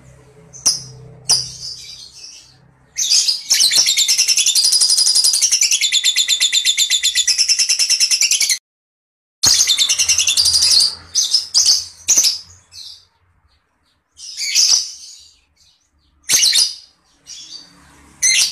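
Lovebird calling with high-pitched chirps, then a rapid chattering trill lasting about five seconds that cuts off abruptly. More chatter follows, then a few single sharp calls spaced apart near the end.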